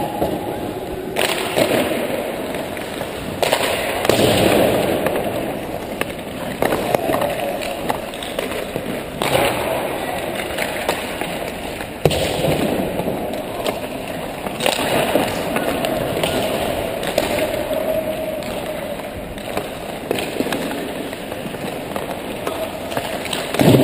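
Hockey skates scraping and carving across the ice, with sharp cracks of sticks striking pucks and pucks hitting the boards, echoing around the rink.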